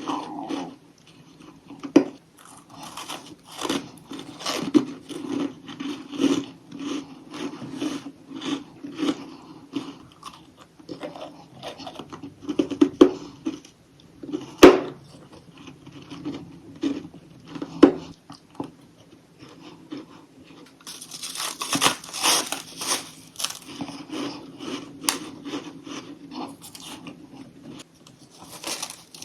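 Chunks of crunchy humidifier freezer frost being bitten and crunched close to the microphone, an irregular run of crisp crunches with a few sharp cracks. About two-thirds of the way through, a denser stretch of crunching follows.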